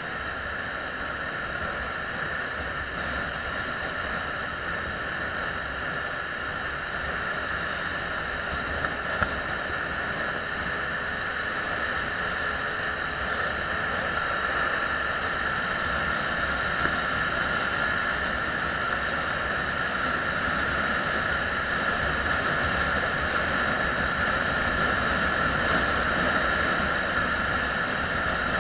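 Yamaha WR125R single-cylinder motorcycle cruising steadily on the road. Its engine drone is mixed with a constant rush of wind and road noise at the bike-mounted camera, growing slightly louder over the stretch.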